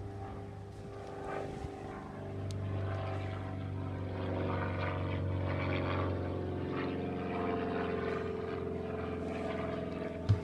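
A small engine droning steadily in the background, growing louder a couple of seconds in. There is a sharp knock near the end.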